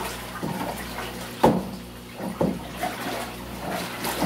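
Salt water sloshing in a plastic barrel as a long wooden pole stirs it, mixing salt and alum into a rehydrating solution for dried furs. Irregular swishing strokes, with a louder stroke about a second and a half in and another about a second later.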